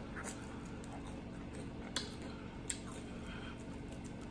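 Close-miked eating: soft chewing of a bitten piece of fried food, with a couple of faint mouth clicks or smacks, one about two seconds in and another shortly after, over a steady low hum.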